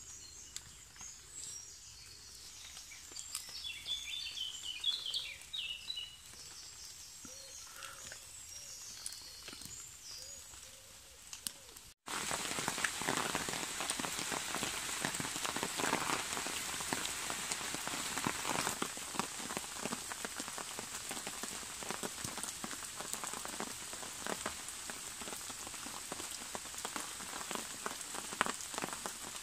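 Rain falling in woodland: a dense, steady patter of drops that starts abruptly about twelve seconds in. Before that there is a quieter stretch with faint, short high chirps.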